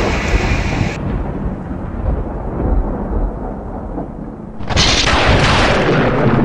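Thunder: a deep rolling rumble that swells into a long, loud thunderclap about four and a half seconds in.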